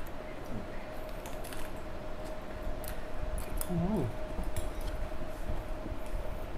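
Light scattered clicks and clinks of tableware and food being handled while eating, over a steady faint hum. A short gliding vocal sound comes about four seconds in.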